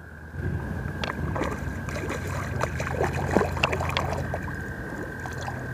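A hooked smallmouth bass splashing and thrashing at the water's surface as it is played in, with a run of irregular short splashes. A steady high tone hums in the background.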